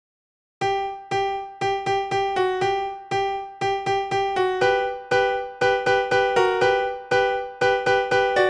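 Keyboard music, an electric-piano-like tone playing short struck notes that fade quickly, in a brisk, fairly even rhythm. It starts about half a second in and moves among a few pitches.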